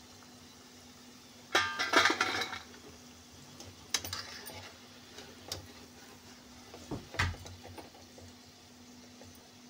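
Stainless-steel wire skimmer clinking and scraping against a kadhai as onion pakoras are turned and gathered in the frying oil: a burst of clatter about a second and a half in, then a few single clinks and a dull knock later, over a faint sizzle of the oil.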